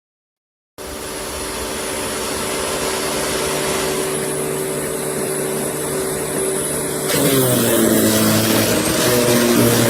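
VIVOSUN 15-amp electric wood chipper shredder running, cutting in abruptly about a second in. About seven seconds in it gets louder and its pitch drops and wavers.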